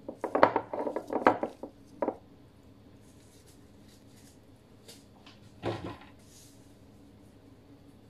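Gloved hands rubbing seasoning into a raw whole chicken in a metal tray: a quick run of small rubbing and tapping noises in the first two seconds, then a single knock a little before six seconds.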